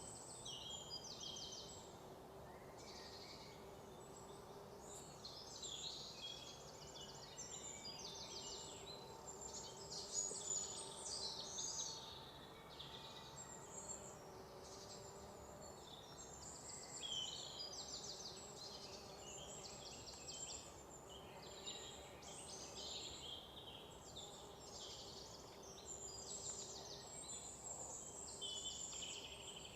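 A chorus of forest birds singing and calling, many voices overlapping without pause, over a faint steady background hiss.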